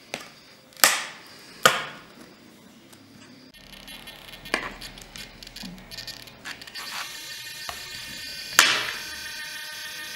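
Sharp metallic clicks and snaps of needle-nose pliers working a small metal pushrod linkage on a wing servo: two loud snaps in the first two seconds, a softer one in the middle and another loud one near the end. A faint steady hum runs under it from about a third of the way in.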